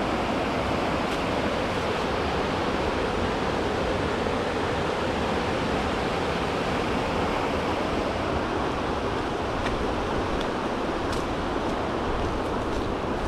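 Rushing water of the Linville River, a steady, even noise.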